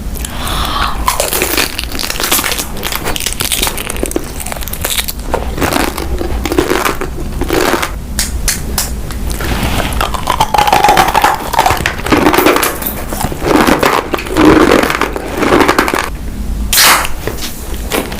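Close-miked eating: food being bitten and chewed, with repeated crunches and crackles.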